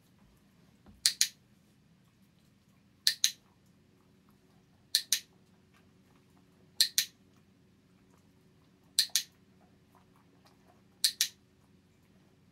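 A dog-training clicker clicks six times, about once every two seconds. Each click is a sharp double snap as it is pressed and released, marking the puppy each time she stays lying down.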